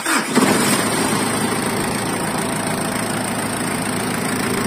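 Ford Everest diesel engine just started, running up briefly and then settling into a steady idle.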